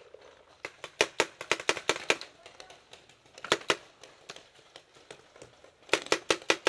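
Paintball markers firing: a quick string of about half a dozen sharp pops a second or so in, a few scattered shots in the middle, and another fast string near the end.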